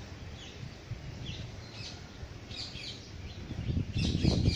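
Birds chirping in a tree: many short, high, falling chirps, thickening near the end, over a low rumble that swells in the last moment.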